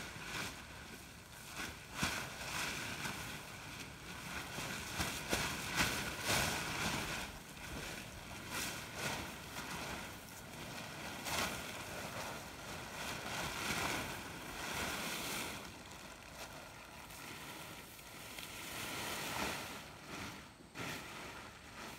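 Blue plastic tarp rustling and crackling as it is dragged and folded over a load of wild apples, in an uneven, continuous rustle with many sharp crackles.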